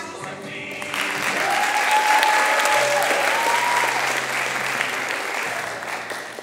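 Audience applause in a school auditorium, swelling about a second in and fading away near the end.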